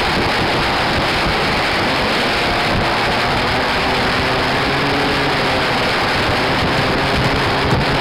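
Heavy wind rush on the microphone of a moving two-stroke scooter, with the engine running steadily underneath.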